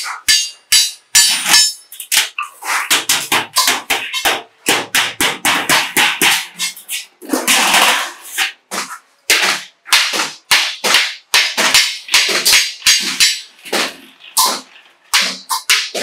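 Hammer blows on galvanized sheet metal: a steady run of sharp, ringing strikes, about three a second, with a brief rasp of sheet metal being shifted about halfway through.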